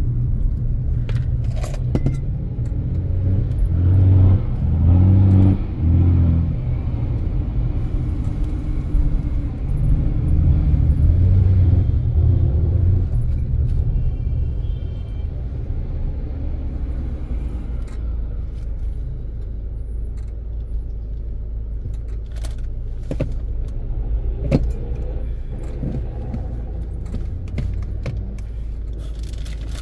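Car driving on a highway, heard from inside the cabin: a steady low rumble of engine and tyres that swells a few seconds in and again around ten seconds in, with scattered light clicks and rattles.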